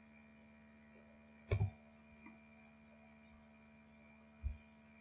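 Faint steady electrical hum with a thin high whine over it, broken by a few short, soft knocks: one about a second and a half in, a fainter one soon after, and another near the end.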